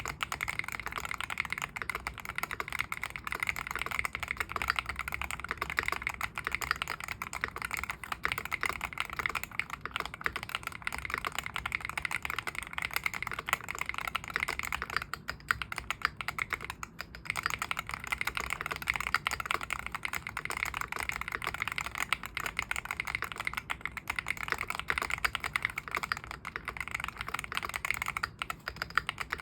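Continuous fast typing on a Venom 60HE Hall-effect keyboard built with a spider O-ring mount: many keystrokes a second, with a couple of short pauses about halfway through.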